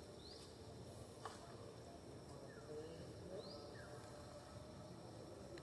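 Faint outdoor background hiss with a few short, thin bird chirps, some rising and some falling, and a single sharp click about a second in.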